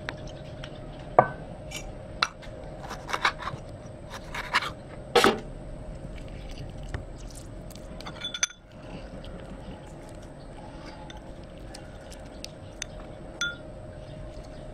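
Metal spoon clinking and scraping against a ceramic bowl. There is a quick run of taps in the first five seconds, the loudest about five seconds in, then only a few light ticks.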